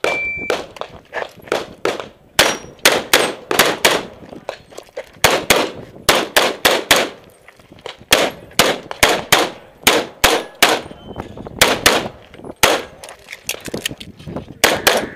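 An electronic shot timer's start beep, a short steady tone, then a .38 Super competition race pistol fired in rapid strings, dozens of shots, many of them two in quick succession.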